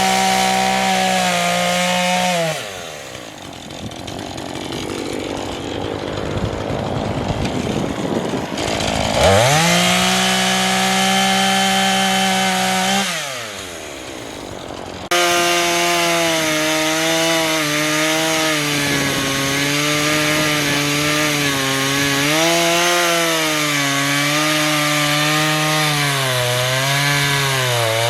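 Husqvarna 435 two-stroke chainsaw running at high revs, falling back to a low idle about two seconds in, revving up again around nine seconds and dropping back near thirteen seconds. After an abrupt cut it runs at speed with its pitch dipping and wavering as the chain works under load through wood.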